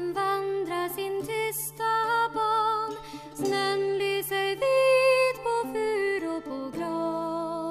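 Background music: a melody of held notes, some with vibrato, over a steady low drone.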